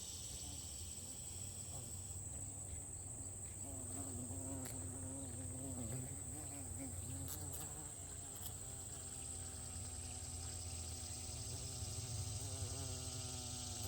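A flying insect buzzing close by, its low hum wavering in pitch, then holding steadier later on. Under it runs a steady high-pitched insect trill.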